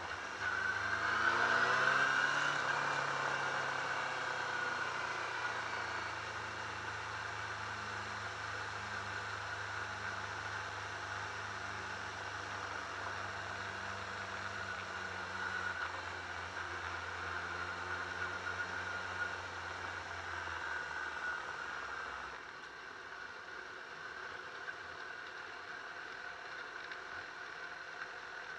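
Yamaha R6 inline-four engine revs up briefly, then runs steadily at low revs as the bike is ridden slowly. About three-quarters of the way through, the engine note stops.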